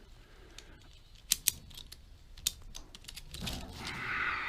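A few sharp, separate clicks and taps of metal parts or tools being handled while the hood is being removed, then a longer, softer noise near the end.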